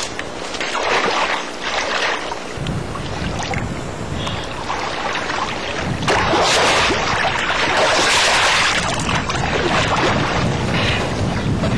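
A swimmer splashing through lake water, in uneven surges, with the loudest splashing about six to nine seconds in.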